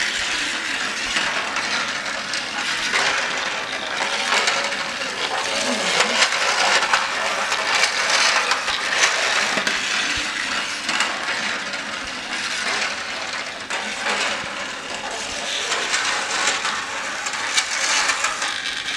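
Battery-operated plastic toy train engine running on its plastic track: a steady rattling clatter of the little motor and wheels, full of small clicks.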